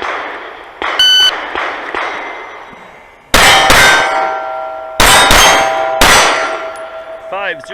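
Shot timer beeps once about a second in, then a Sig P320 Carry pistol fires five shots, two quick pairs and a last single, each answered by the clang of a steel target plate. The ringing of the last plate hangs on to the end.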